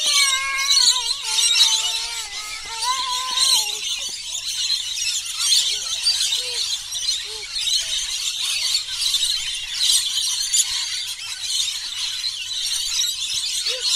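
A large flock of rainbow lorikeets screeching and chattering without a break. For the first few seconds a young child's high voice rises and falls over it.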